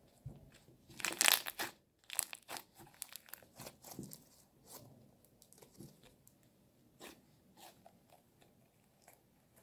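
Slime being squeezed and poked close to the microphone, crackling and popping. There is a dense burst of crackles about a second in, then scattered pops that thin out towards the end.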